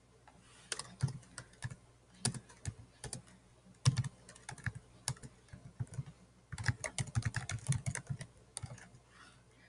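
Typing on a computer keyboard: scattered single keystrokes, then a quick run of keys about two-thirds of the way through.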